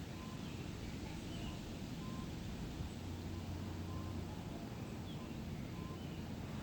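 Faint forest bird calls: a short note repeated about every two seconds, with a few higher chirps between, over a steady low rumble.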